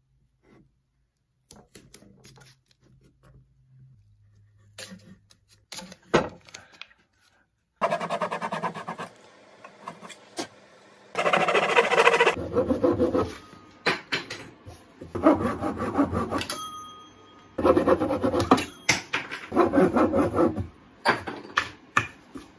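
Hand saw cutting through ash corner pieces glued onto a wooden box, trimming them flush in several bouts of fast back-and-forth strokes. Before the sawing starts there is fainter rubbing of sandpaper on wood.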